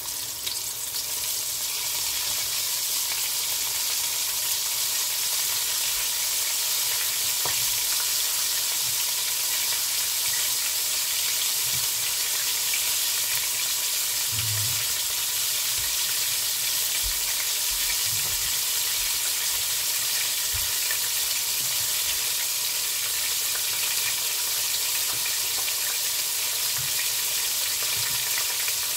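Flour-dredged chicken leg quarter deep-frying in a pot of hot oil: a steady, dense sizzle of bubbling oil that begins abruptly and then holds even, with a few faint low knocks.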